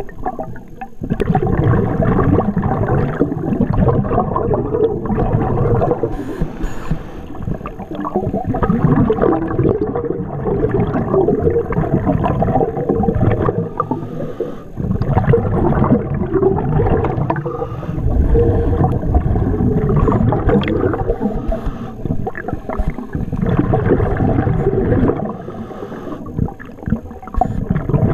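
Underwater gurgle and rush of a scuba diver's exhaled bubbles from the regulator, coming in long bursts every few seconds with brief lulls between breaths.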